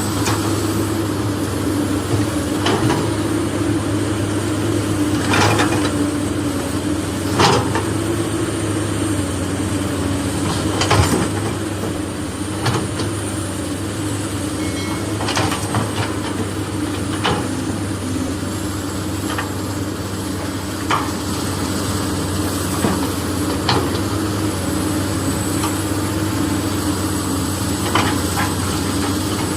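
A steady, low engine-like drone with irregular sharp clicks and knocks over it.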